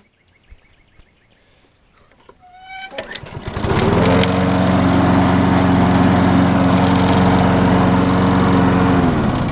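Craftsman 6.75 lawn mower's single-cylinder engine starting about three seconds in and running steadily, then shut off near the end, its note dropping as it winds down. It is restarting and running smoothly after a clogged carburetor port or jet was cleaned.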